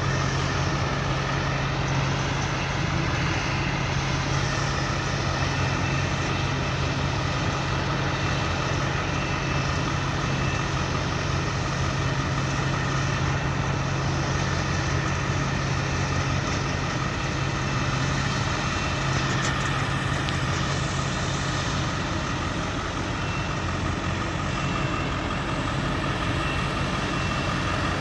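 Heavy engine of corn-harvesting farm machinery running steadily with a strong low hum. A faint high whine joins it about three-quarters of the way through.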